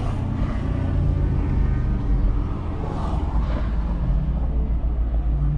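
Chevrolet Camaro's V8 idling steadily with the car stopped, heard from inside the cabin.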